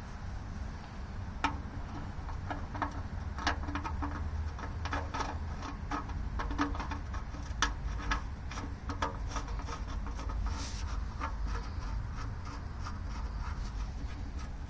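Irregular light clicks and taps of a metal drain plug and magnet being handled and fitted by hand, over a steady low hum.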